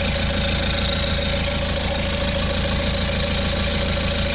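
Citroen car engine idling steadily, with an even low pulsing rumble.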